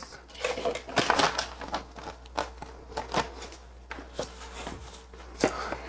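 A bag of dried buds being handled on a scale, its plastic crinkling and rustling in a run of irregular crackles.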